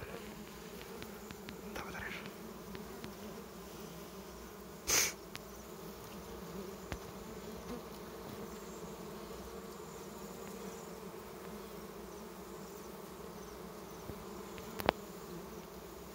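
Steady buzzing hum of a colony of dwarf honeybees massed on their single exposed comb. A brief louder burst comes about five seconds in, and a sharp click near the end.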